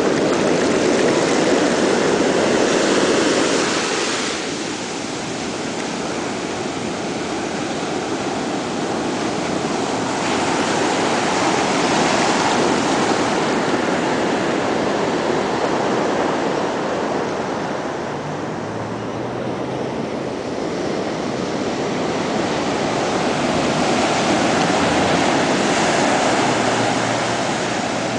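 Ocean surf washing onto a beach: a continuous rush of breaking waves that swells louder and eases back a few times.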